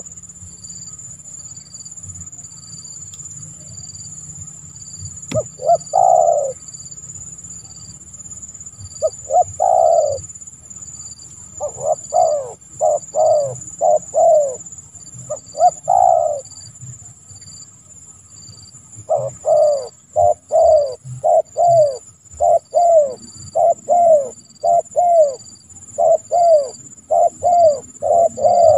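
Spotted dove (tekukur) cooing: short groups of low coos with pauses between them, turning into a fast, almost unbroken run of coos in the last ten seconds.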